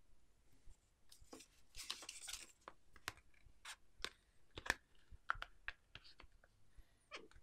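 Handling sounds as a clear plastic case is fitted onto a Poco X3 NFC smartphone: a brief rustle about two seconds in, then a series of sharp clicks and taps as the case is pushed onto the phone.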